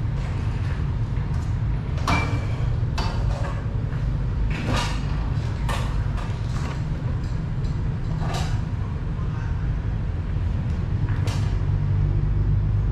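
Barbershop background: a steady low rumble with about half a dozen short, sharp clicks and scrapes scattered through, from the barber handling the customer's cape and working at his head.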